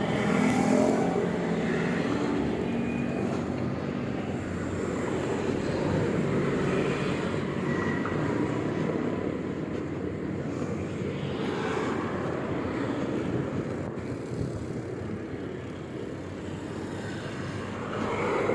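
Steady road traffic noise mixed with wind rushing over the microphone of a moving bicycle, swelling a little a few times as vehicles pass.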